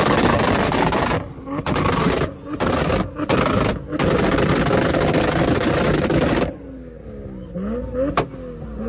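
Toyota Supra MK4's 2JZ inline-six running on a rolling anti-lag tune, loud and rough through its single large exhaust, with four brief cut-outs in the first four seconds. About six and a half seconds in it drops to a quieter rev that rises and falls.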